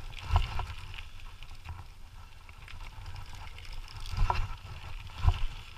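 Dog scooter rolling over a rough trail, its wheels rumbling steadily, with three sharp knocks and rattles as it hits bumps.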